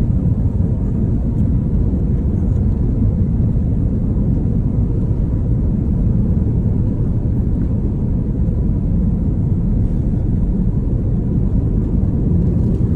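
Passenger airliner's engines and airflow heard inside the cabin around takeoff: a loud, steady low rumble.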